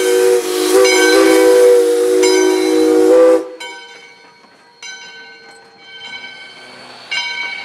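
Steam locomotive #40's chime whistle sounds one long blast as a chord of several tones, its pitch wavering slightly, and cuts off about three and a half seconds in.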